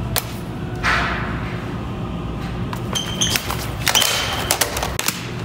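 Plastic toy lightsaber blades clacking in a mock duel: sharp knocks, a swish about a second in, and a few short high pings around three to four seconds in.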